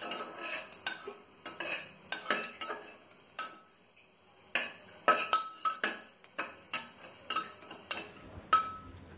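Metal spatula stirring ginger, garlic and whole spices as they fry in butter and oil in a metal pressure cooker: repeated clinks and scrapes against the pot, each ringing briefly, with a short lull in the middle.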